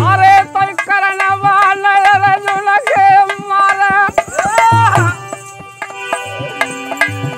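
A man sings a long, wavering held note in a Hindi folk bhajan over dholak drum strokes. The voice breaks off about five seconds in, and the drum plays on more lightly.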